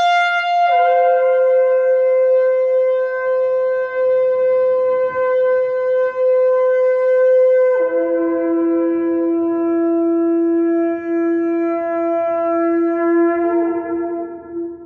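Ram's-horn shofar sounding one long, loud held blast. The pitch steps down about a second in and drops lower again about halfway, then lifts briefly near the end before the blast stops.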